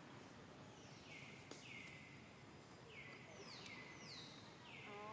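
Faint outdoor ambience: a steady hiss with a small creature's high call repeated about six times, each call sliding down in pitch and then levelling off. A short lower squeak comes right at the end.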